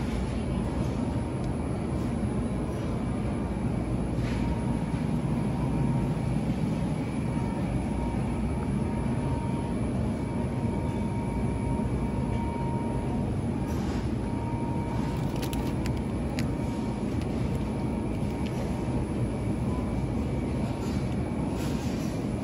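Steady low rumble of supermarket background noise with a faint constant whine, and a few faint clicks scattered through it.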